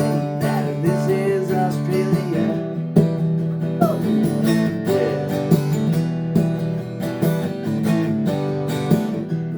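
Acoustic guitar strummed in a steady rhythm, playing the instrumental break of a pop-rock song, with a few single-note melody lines over the chords.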